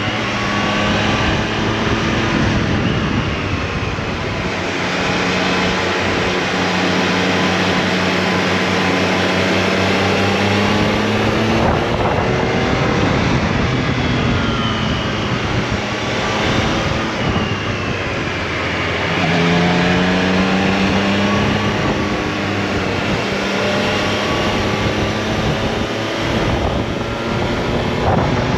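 Triumph Tiger Sport 660's three-cylinder engine heard onboard, its pitch rising and falling several times as the rider accelerates, shifts and rolls off the throttle, with wind rushing over the microphone.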